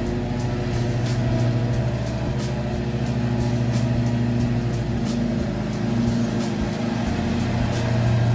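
Zero-turn riding mower's engine running steadily as it cuts through tall grass, a constant hum that swells and eases slightly.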